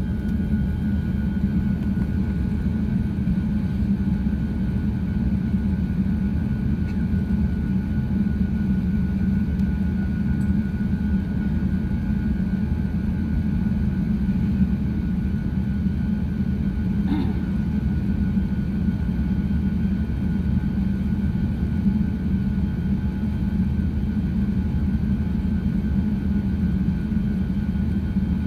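Steady cabin rumble of an Airbus A350-900 in flight, engine and airflow noise heard from inside the cabin, with a faint steady whine over it. One faint click about two-thirds of the way through.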